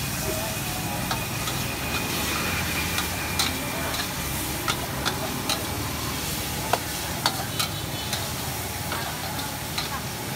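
Food stir-frying in a wok over a gas burner: a steady sizzle, with a long-handled metal utensil scraping and clinking against the wok in sharp, irregular strikes.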